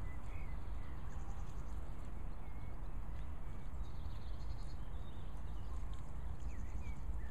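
Outdoor ambience: a steady low rumble of wind on the microphone, with a few faint short bird chirps and a quick trill about four seconds in.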